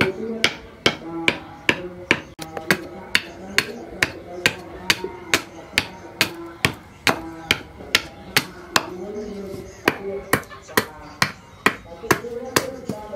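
Small hand axe chopping into a wooden slat held upright on a wooden block: sharp wooden chops at about two a second, with a short pause about two-thirds of the way through.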